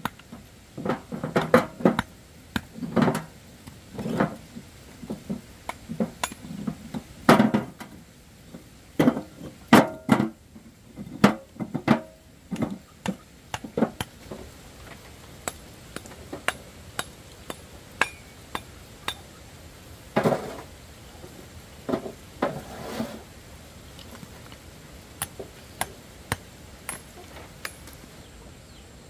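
Irregular knocks and clinks of hard objects being handled and set down, coming thick and fast for about the first half, then more spaced out.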